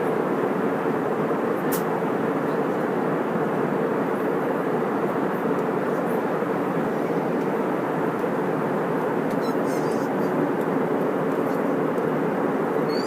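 Steady airliner cabin noise in cruise: a constant rush of engines and airflow with a low steady hum, unchanging in loudness.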